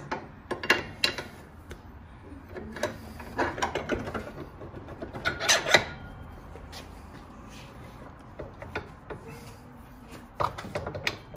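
Motorcycle wheel axle and parts being handled and fitted by hand: scattered clicks, light knocks and rubbing, loudest in a short clatter about five and a half seconds in.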